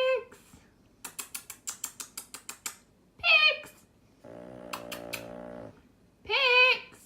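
Sleeping dog snoring: one long, low, buzzing snore and three short, high-pitched squeaks. A quick run of about a dozen sharp clicks comes between the first and second squeaks.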